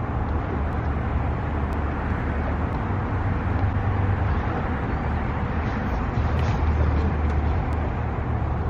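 Wind buffeting the microphone: a steady low rumble that swells and eases, under a broad outdoor hiss.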